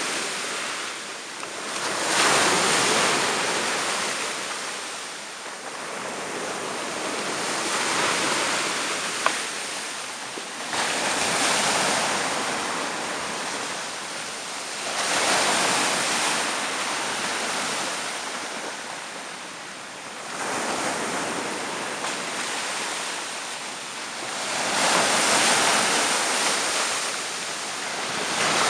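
Surf laden with slush and ice chunks washing up the beach and drawing back, swelling in a hiss every four to five seconds. A single sharp click about nine seconds in.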